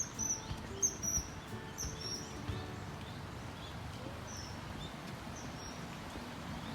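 Small birds chirping in short, high, quick notes, busy for the first couple of seconds and then sparser, over a steady low outdoor rumble.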